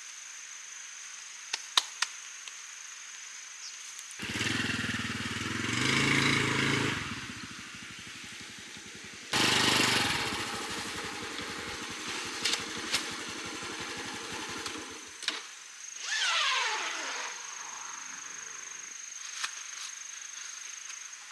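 A small motorcycle engine starts suddenly and runs for a few seconds, then starts and runs again. Near the end a vehicle sound falls steeply in pitch, as a motorcycle does when it passes and moves away.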